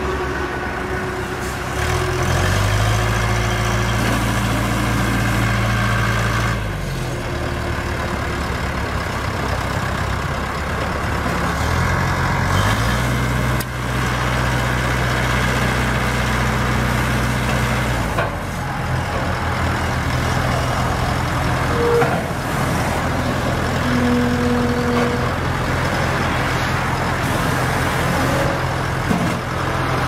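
Case 680 backhoe loader's engine running, revving up for several seconds about two seconds in and again about twelve seconds in, then dropping back to a lower speed. The loader bucket is raised during the revs. A few short higher-pitched tones come in later on.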